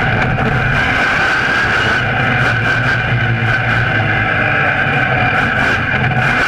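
Monster truck's engine running hard and steady as the truck drives, holding a fairly even pitch.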